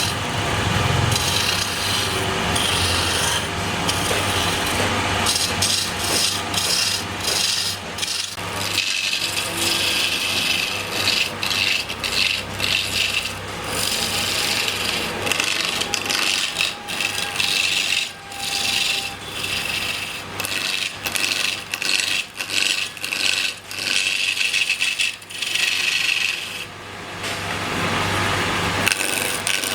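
Wood lathe turning: a cutting tool scraping and shaving the spinning wood, the cut breaking off and resuming many times, over a steady low motor hum.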